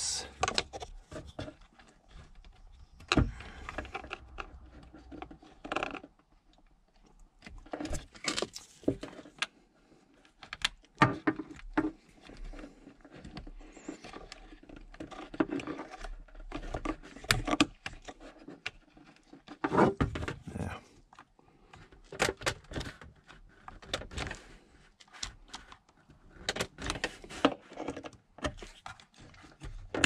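Irregular clicks, taps and scrapes of fingers and a thin screwdriver working a plastic ignition switch into its slot on a Chevy Silverado steering column; the switch keeps going in crooked and jamming before it seats.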